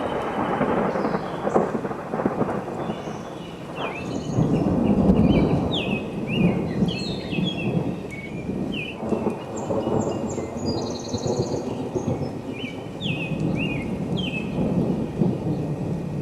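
Thunder rumbling in several rolling swells, the loudest about four to six seconds in, with birds chirping and trilling above it.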